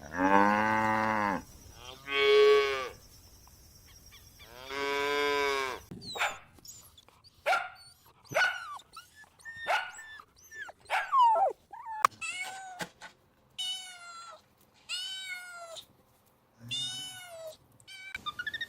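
Cows mooing, three long low calls in the first six seconds. A run of short, quick, falling yelps follows, then a cat meowing several times.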